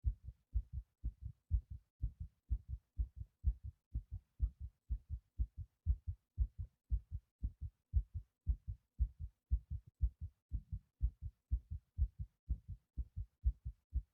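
A human heart beating fast, recorded close to the chest, with a steady run of low paired lub-dub thumps at about two beats a second. The fast rate comes from breath-holding.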